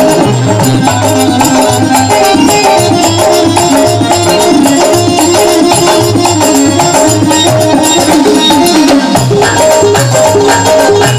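Instrumental interlude of a Rajasthani bhajan: a melody instrument playing a stepping tune over a steady hand-drum beat and continuous jingling percussion.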